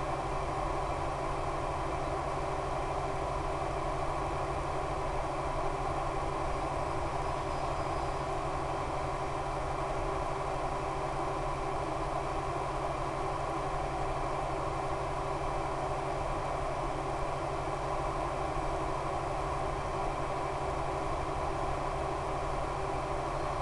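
Steady, unchanging drone of an RC plane's E-flite Power 10 electric motor spinning an 11x7 APC propeller in flight, mixed with rushing air.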